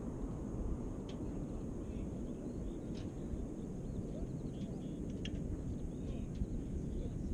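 Outdoor ambience: a steady low rumble of wind on the microphone, with faint bird chirps and a few brief sharp ticks.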